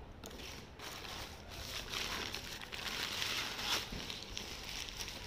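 Newspaper crinkling and rustling as a newspaper-wrapped clay piece is taken out of a cardboard box and unwrapped by hand, louder in the middle stretch.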